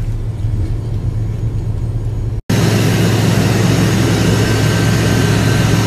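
Steady low drone of a private jet's cabin, cut off abruptly about two and a half seconds in. A louder, steady aircraft engine noise with hiss follows.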